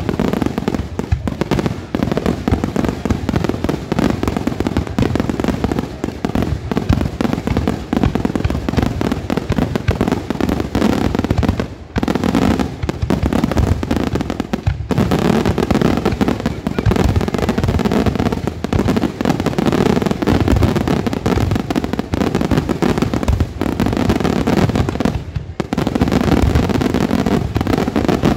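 Aerial fireworks display: a dense, continuous barrage of shell bursts and crackling, with only brief lulls about 12 and 15 seconds in. The display is at its closing barrage.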